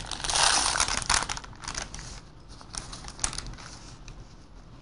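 A 2x2 gauze sponge packet being peeled open and spread out by gloved hands: dense crinkling and crackling for about two seconds, then fainter rustles and a few light ticks.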